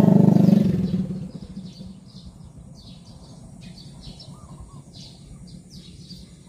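A motorcycle passing on the road, its engine fading away over the first second or so, followed by small birds chirping: a run of short, high calls, about two to three a second.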